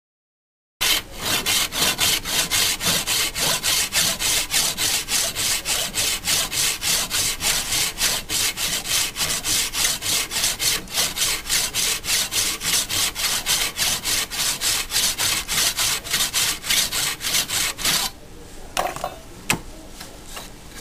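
Pax 1776 variable-pitch saw with a folded brass back cutting through a block of wood held in a bench vise, in quick even strokes, about three a second. It starts about a second in and stops near the end, followed by a few knocks as the block is handled in the vise.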